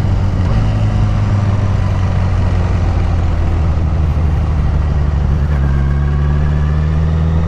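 Honda CBR1000RR sportbike's inline-four engine running under way, with wind rush over it. The engine note shifts to a new steady pitch about five and a half seconds in.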